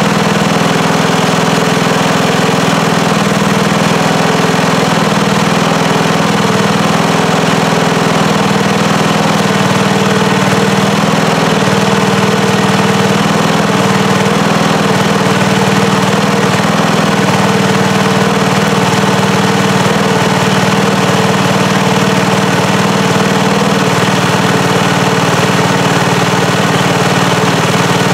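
An 11 hp Briggs & Stratton engine running steadily under load, belt-driving a large Chrysler alternator that is supplying welding current. The alternator's heavy field load drags on the engine, which runs at raised RPM to make up for it.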